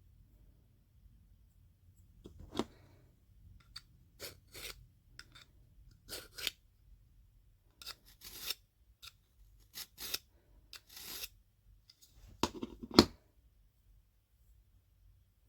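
Knife blade slicing through paper in a sharpness test: a dozen or so short, crisp cutting strokes at irregular intervals, the loudest two near the end.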